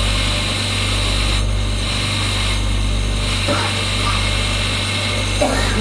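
Motor-driven lapidary grinding wheel spinning, a steady low hum with a high whine over it.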